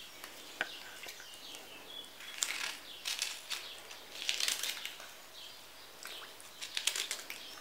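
Water splashing and sloshing in a stainless steel bowl as a gloved hand stirs artichoke halves in flour water, in a few short bursts with small clicks in between.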